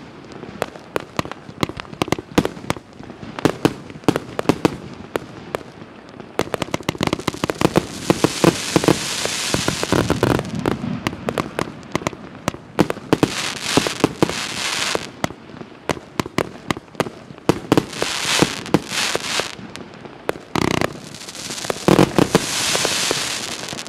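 A multi-shot consumer firework cake (a 137-shot battery of assorted calibres) fires a rapid string of sharp launch thumps and bursting bangs. Four times, every few seconds, a rushing hiss of sparks lasts a second or two.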